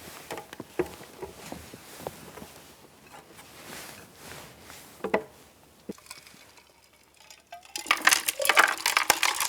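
Vegetable ingredients being dropped into a blender pitcher: scattered knocks and clinks, then a denser, louder clatter near the end.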